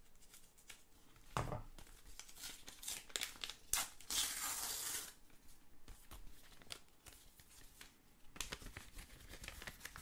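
A paper envelope slit open with a folding-knife blade, then handled, with scattered paper rustles and clicks. About four seconds in comes a longer tearing sound lasting about a second.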